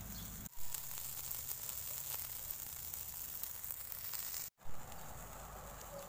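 Chicken skewers sizzling on a charcoal grill: a steady hiss with faint crackles from the hot coals. The sound cuts out for an instant twice, about half a second in and about four and a half seconds in.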